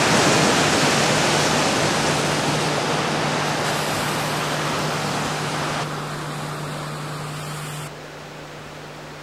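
Steady rushing outdoor noise with a low steady hum beneath it, dropping in level in steps around the middle and again near the end.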